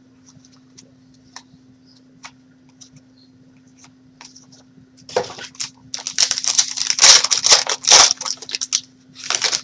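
Light clicks and taps of trading cards being handled, then, about five seconds in, a foil trading-card pack wrapper being opened, ripping and crinkling loudly for about four seconds.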